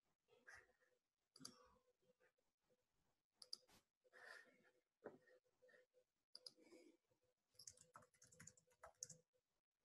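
Near silence broken by faint, irregular clicks of a computer mouse and keyboard being used, over a faint steady hum.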